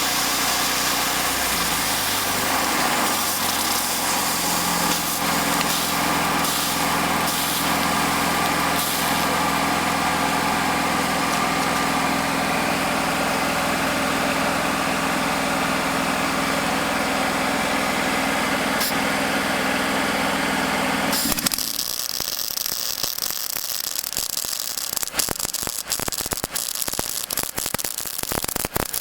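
A motor runs with a steady hum, then cuts off abruptly about two-thirds through and gives way to an irregular crackling, sputtering noise.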